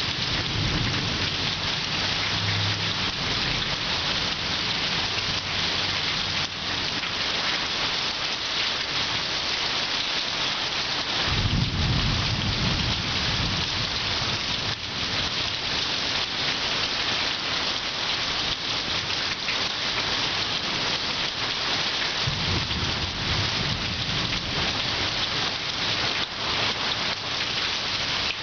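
Heavy rain pouring steadily in a thunderstorm, with low rumbles of thunder near the start, a louder one midway, and another later on.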